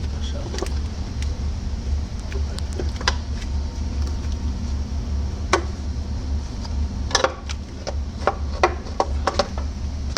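Scattered metallic clinks and knocks of tools and engine parts being handled as the top end of a truck engine is taken apart, several in quick succession about seven to nine and a half seconds in, over a steady low hum.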